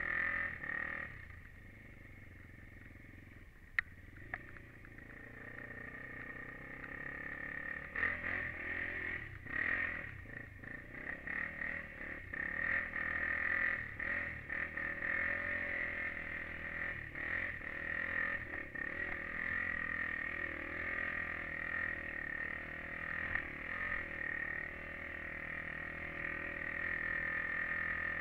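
Honda TRX400EX quad's single-cylinder four-stroke engine running under way, low for a few seconds near the start, then revving up and down with the throttle. A single sharp click about four seconds in.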